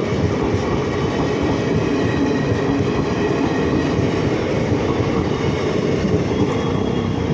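Indian Railways passenger coaches rolling past at a level crossing, a steady loud rumble of wheels on the rails.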